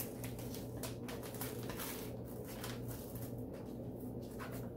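Clear transfer tape being smoothed and peeled off a vinyl decal on a canvas: scattered light crackles and rustles over a steady low hum.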